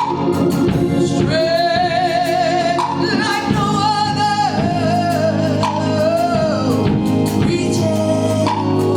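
Gospel music: a voice singing long held notes with vibrato over organ and band accompaniment.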